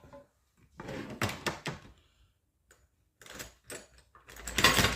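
Clatter and knocks of small metal parts and hand tools being handled on a workbench: two runs of short clicks and taps, the loudest burst near the end.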